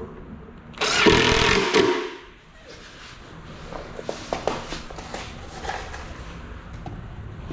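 Cordless driver running in one burst of about a second, driving a screw through a drawer slide rail into a particleboard cabinet panel, followed by scattered clicks and knocks of handling.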